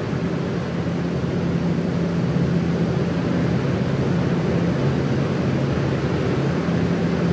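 Electric pedestal fan running steadily: an even whoosh of moving air over a constant low motor hum.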